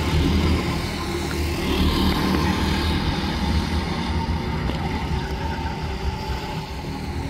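Go-kart engines running as a pack of rental karts races around the track.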